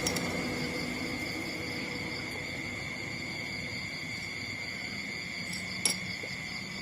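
Steady high-pitched chirring of insects, with one sharp click about six seconds in.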